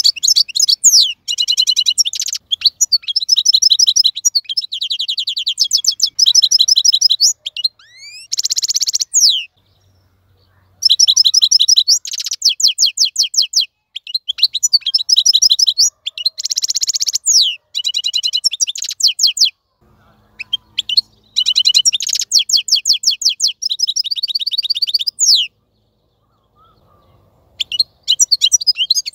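Wild-caught European goldfinch singing: long phrases of rapid, high twittering trills and chirps, broken by short pauses, with a pause of about two seconds near the end before it starts again.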